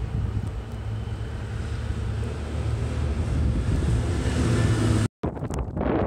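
A steady low vehicle engine rumble under wind on the microphone. About five seconds in it cuts off abruptly, and gusty wind buffeting the microphone takes over.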